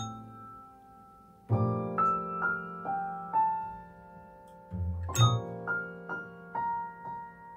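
Background piano music, gentle single notes with long decays. About five seconds in, a cat's paw presses a tabletop call bell, a bright ding over the music.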